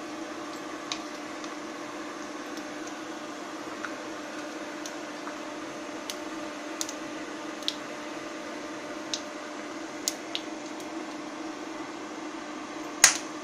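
Whole spices frying in hot oil in a non-stick pan, with scattered small pops and crackles, over the steady hum of an induction cooktop's cooling fan. A louder sharp clack near the end.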